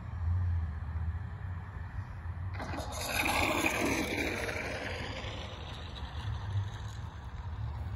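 3D-printed Eclipson Model T RC plane passing by under power, its propeller and motor coming in suddenly about two and a half seconds in as a rushing whine, then fading with a falling pitch as it flies away. Low wind rumble on the microphone underneath.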